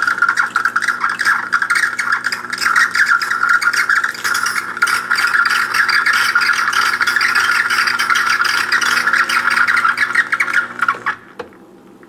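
Gaggia Brera super-automatic espresso machine dispensing hot water through its steam wand into a glass of espresso: a steady pump hum under a crackling, sputtering hiss of water. It cuts off about eleven seconds in as the dispensing ends.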